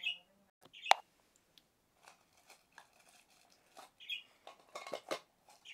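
Small plastic toy and its packaging being handled and opened: scattered sharp clicks and taps, the loudest about a second in, with short high squeaks now and then.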